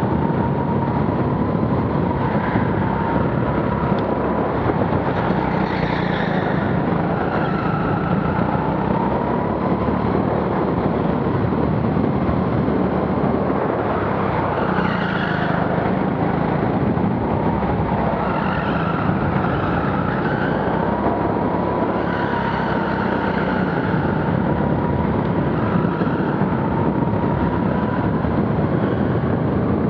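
Rental go-kart driven flat out around an indoor track, heard from the driver's helmet: a steady motor drone with a whine that wavers in pitch as it speeds up and slows, and brief tyre squeals through several corners.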